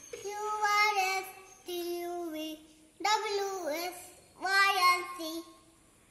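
A young child singing a short song in four phrases, each on held, steady notes, with brief pauses between them.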